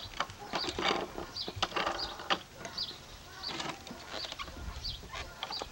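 Plastic low-rider tricycle being pedalled on a concrete sidewalk: the plastic wheels and pedals rattle with repeated clicks and short high squeaks.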